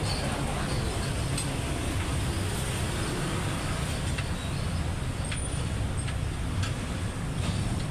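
Steady rumbling noise like passing road traffic, with a few faint clicks scattered through it.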